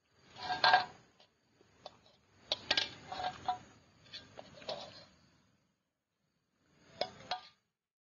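A metal serving spoon scraping and clinking against a metal pan as food is dished up, in several short bouts, with two sharper clinks near the end.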